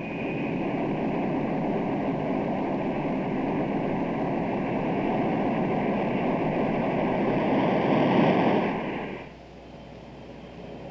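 B-52 carrier aircraft's jet engines at takeoff power during the takeoff roll: a loud, steady rush of noise that grows a little and then drops suddenly to a quieter drone about nine seconds in.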